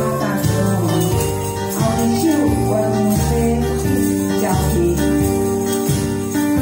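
Backing music for a sing-along, with a steady bass line and jingle bells shaken in time.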